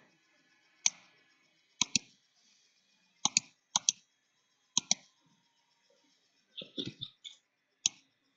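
Computer mouse clicks: a scattered series of sharp single and double clicks with pauses of a second or two between them, and a softer, duller cluster of small sounds a little before the end.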